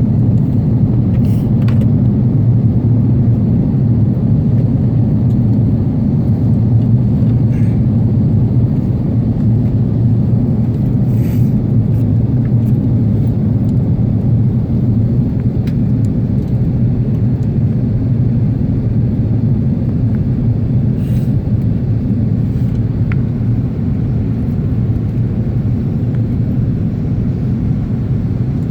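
Steady low rumble of engine and airflow noise heard inside an Airbus A330 airliner's cabin, with a few faint clicks.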